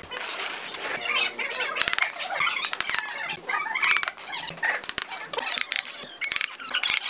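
Steel bricklaying trowel scraping wet cement mortar along small hollow clay bricks, with many sharp clinks and scrapes of steel on brick.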